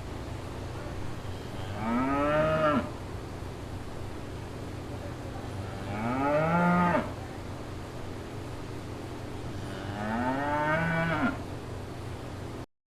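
Cow mooing three times, about four seconds apart. Each moo lasts about a second and rises then falls in pitch, over a steady low hum. The sound cuts off abruptly near the end.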